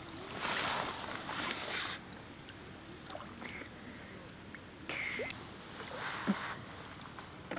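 Shallow water sloshing and splashing around a young elephant seal shifting its body in it: one longer burst at the start, then two short splashes near the end.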